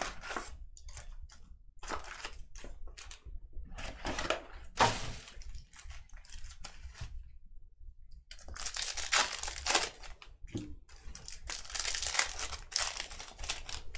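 Trading card pack wrappers being torn open and crinkled by hand: a run of short tearing and rustling sounds, with one louder tear about five seconds in and a longer stretch of crinkling from about eight and a half to thirteen and a half seconds.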